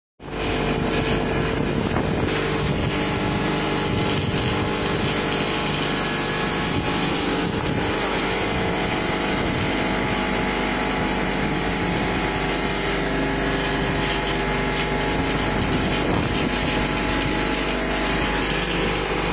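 Paver-tile making machinery running steadily: a constant mechanical drone with a steady hum.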